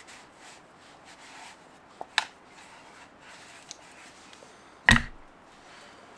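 A small metal cooking pot being scrubbed by hand with a sponge and hot water to degrease it: soft rubbing, a couple of sharp clicks about two seconds in, and one loud knock about five seconds in.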